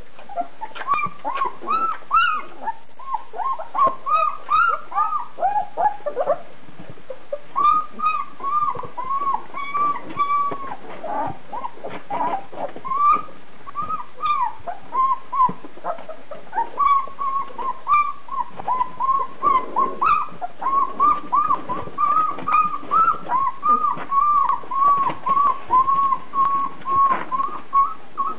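Two-week-old German shepherd puppies whimpering and squeaking while they nurse: a string of short, high cries, several a second, with a brief lull about six seconds in.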